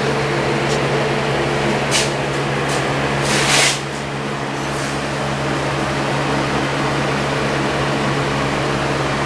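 A steady mechanical hum, like a fan or motor running, with a short click about two seconds in and a brief scraping or rustling noise at about three and a half seconds.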